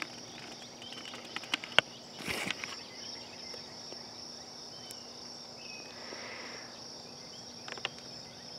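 Steady high-pitched chorus of night insects. A few light clicks come about a second and a half in, and a brief rustle of noise about two seconds in.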